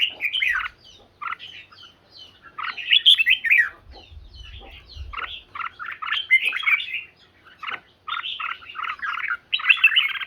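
Red-whiskered bulbul singing in a song duel: phrase after phrase of quick, chattering notes with short gaps between them.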